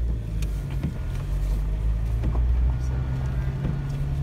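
Vehicle engine and road noise heard from inside the cabin while driving, a steady low drone with a few short knocks and rattles from the rough road.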